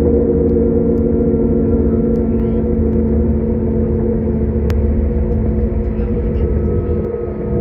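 Passenger train running at speed, heard from inside the carriage: a steady drone with several held tones over a low rumble of wheels on the track. There is a single sharp click about two-thirds through, and the drone dips briefly near the end.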